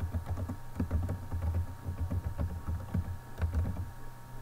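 Typing on a computer keyboard: irregular keystrokes, each with a dull thud.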